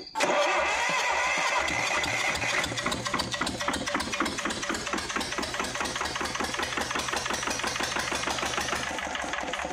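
Lister ST2 two-cylinder air-cooled diesel cranked on its electric starter and starting up after long storage: a starter whine over the first couple of seconds, then a steady, even engine chug.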